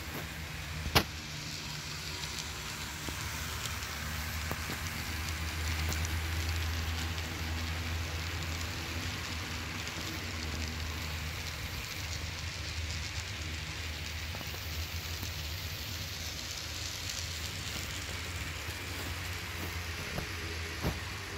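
HO scale model freight train, pulled by CP F7 A and B diesel units, rolling along the layout track. A steady low motor hum runs with a hiss of wheels on rail, loudest about six seconds in. There is one sharp click about a second in.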